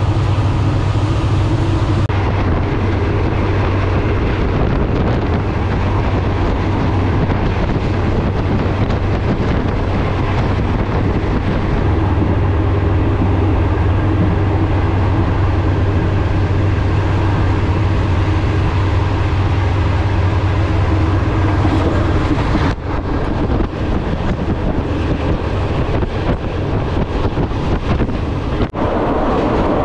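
Moving passenger train heard from inside a carriage with open windows: a steady running rumble with a low hum, plus wind blowing in through the windows. The sound shifts abruptly twice, about two seconds in and again about two-thirds of the way through.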